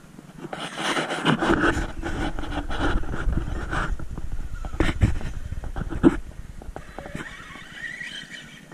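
Traxxas E-Revo 2.0 RC monster truck with Hobbywing electronics running: its electric motor whines and its tyres rumble over the ground, with a string of sharp knocks, the loudest about five and six seconds in, as it lands and bounces. It quietens after about six seconds, leaving a fainter motor whine near the end.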